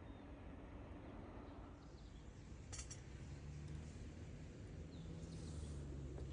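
Quiet outdoor ambience with a few faint, short bird chirps and one light clink about three seconds in, over a low steady hum.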